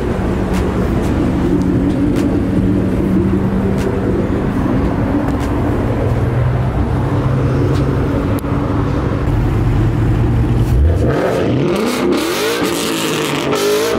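Ford Mustang GT 5.0 V8 engine running steadily, then about eleven seconds in revving, its pitch sweeping up and down.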